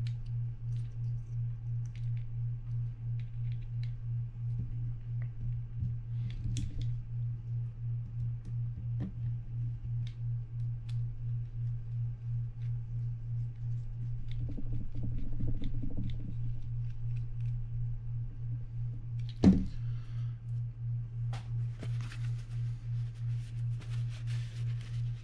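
Small clicks and taps of a Daiwa BG30 spinning reel's bail-arm parts being fitted and the cover screw driven in with a mini screwdriver, with one sharper click about three-quarters of the way through. Paper towel rustles near the end as the reel is wiped. A steady low hum that pulses a few times a second runs underneath throughout.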